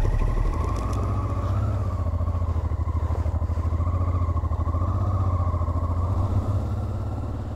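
Honda Transalp 650's V-twin engine running steadily at low revs as the motorcycle pulls away slowly.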